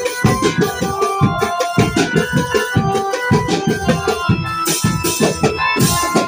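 Lively music: an electronic keyboard or organ melody over a quick, steady drum beat.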